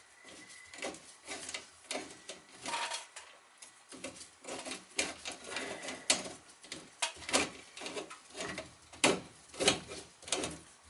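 Irregular metal clicks, knocks and scrapes of hand tools working on a copper water pipe and its soldered fitting, with the sharpest knocks about six and nine seconds in.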